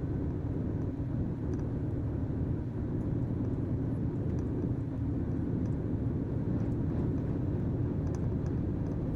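Truck engine and road noise while driving: a steady, even low rumble.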